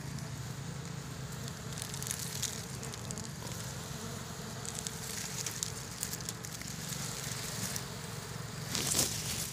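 Dry leaves and twigs crackling and rustling close by as the brush is handled, over a steady low hum. The crackling is loudest near the end.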